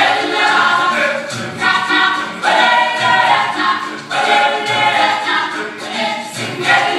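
Group of voices singing together in a gospel-style choir, over a low beat that falls about once a second.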